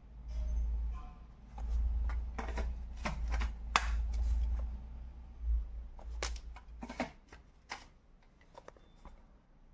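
Plastic audio cassette cases being handled: a series of sharp clicks and light knocks, over a low rumble of handling noise, thinning out near the end.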